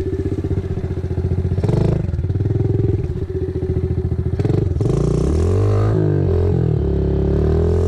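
Dirt bike engine running at a low, even putter, then from about five seconds in revving up and down again and again as the bike bogs down and gets stuck in creek-bed mud.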